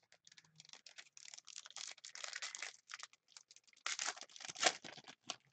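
Wrapper of a 2013-14 Panini Contenders hockey card pack crinkling and tearing as it is opened by hand, a quick run of small crackles that grows loudest about four seconds in.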